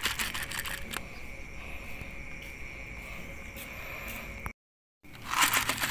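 Steady, high-pitched chirring of night insects such as crickets over a faint hiss. The sound drops out for a moment about four and a half seconds in, and a louder rustling noise follows near the end.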